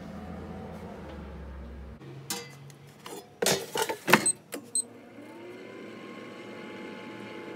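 Air fryer basket sliding home with several clunks and clicks, two short high beeps from the control panel, then the fryer's fan motor spinning up in a rising whine and running steadily. Before this, a low hum cuts off about two seconds in.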